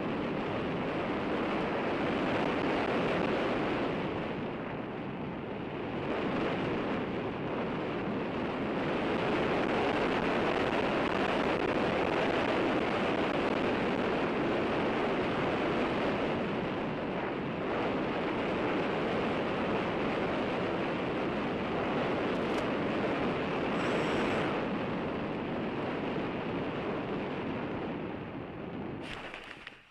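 Steady rushing noise with no motor tone, cutting off abruptly near the end.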